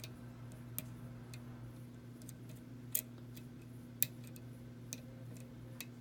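Faint, irregular metallic clicks of a lock pick working the pins of a challenge lock under tension, about six scattered ticks in all, the lock overset and bound up.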